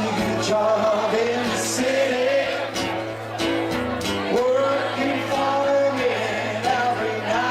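A band playing a song, with a voice singing the melody over guitar and a steady low held note.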